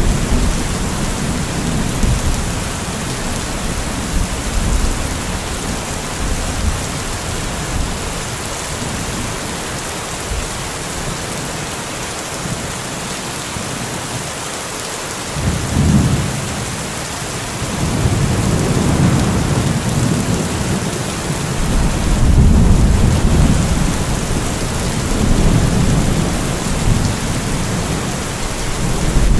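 Steady rain hiss with low rolling thunder. A rumble fades out at the start, another swells up suddenly about halfway through, and longer rolls of thunder come and go through the last third.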